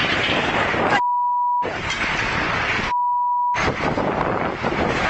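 Two censor bleeps, each a steady high beep lasting about two-thirds of a second, about a second in and again about three seconds in, with the original sound cut out beneath them. Loud rough noise fills the rest.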